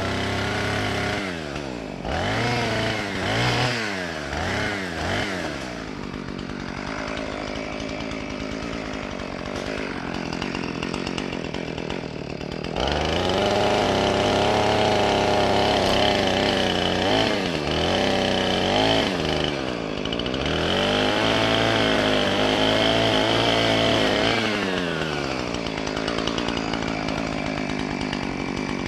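Two-stroke chainsaw revved in several quick blips, then idling, then held at full throttle through two long cuts into oak wood, its pitch sagging as it bites, before dropping back to idle near the end.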